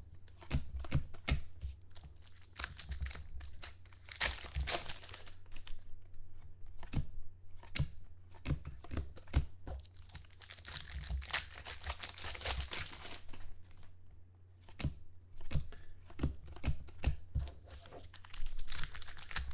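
Trading-card pack wrappers being torn open and crinkled by hand, with cards clicking and sliding against each other. There are longer stretches of tearing about four seconds in and from about ten to thirteen seconds, over a faint steady low hum.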